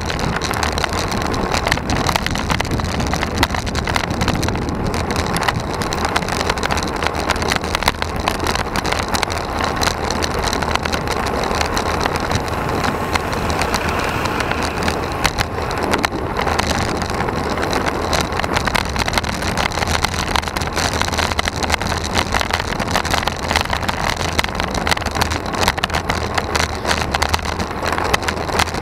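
Wind and road noise on a road bike's handlebar-mounted camera while riding: a steady rush with constant rattling from the asphalt.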